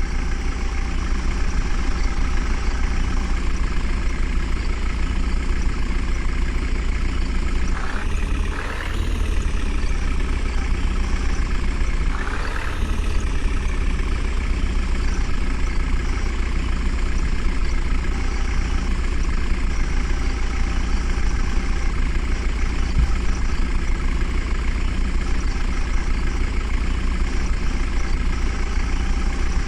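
Diesel engine of a JCB 3DX backhoe loader running steadily, revving up briefly twice, a few seconds apart, as the machine works.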